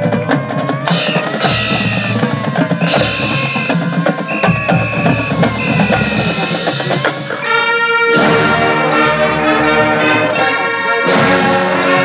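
High school marching band playing its field show opener: drums and percussion with held pitched tones over them, then the full brass section comes in loud with a sustained chord about seven and a half seconds in.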